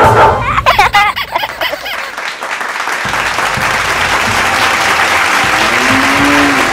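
Crowd cheering and applauding: a loud burst of whoops and shouts, then steady clapping that carries on.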